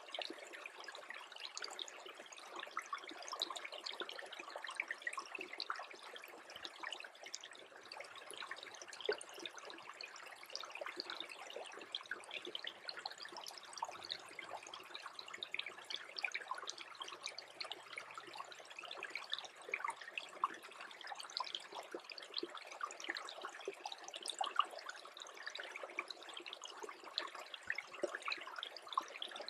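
Small brook trickling steadily, freezing over, with a dense patter of tiny pops and clicks in the running water.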